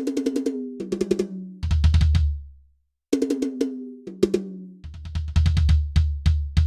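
Addictive Drums 2 software drum kit playing fast tom fills that step down from the high toms to the floor tom, twice, with a short break between them.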